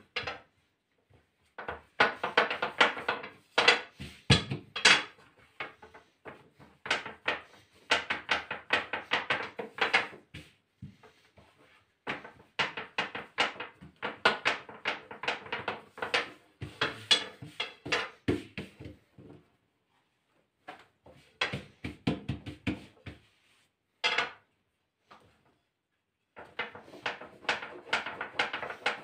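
Long, thin wooden rolling pin rolling dough out on a countertop: bursts of rapid clattering knocks, each run lasting a second or two, with short pauses between strokes.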